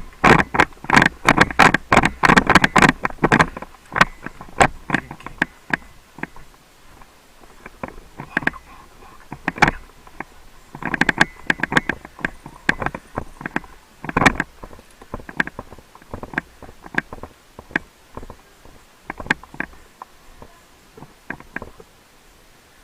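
A run of sharp clicks and knocks, packed close together for the first three seconds or so and again about eleven seconds in, then sparser and fainter.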